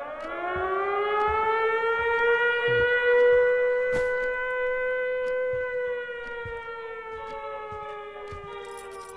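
Air-raid style civil defense siren winding up to a steady wail over about two seconds, holding, then slowly sinking in pitch from about six seconds in.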